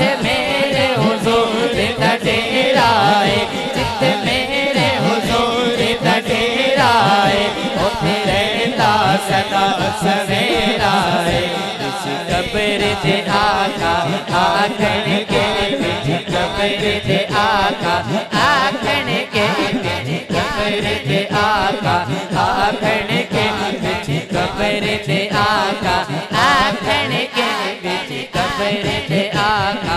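A man singing a devotional Islamic kalam (naat) in long, wavering, ornamented notes over a steady drone.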